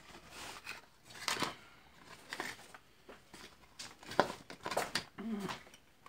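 Hands handling a ceiling fan on a workbench: scattered clicks, taps and rustles from its plastic canopy, fittings and wires.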